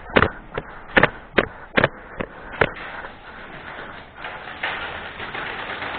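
A run of seven sharp knocks at an even pace, about two and a half a second, stopping after about two and a half seconds; a rustling noise then builds and grows louder toward the end.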